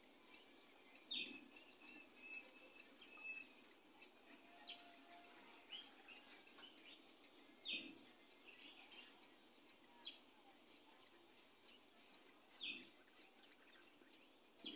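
Faint squeaks and scratches of a marker pen writing on a whiteboard: many short strokes, with a few louder ones about a second in, near eight seconds and near thirteen seconds.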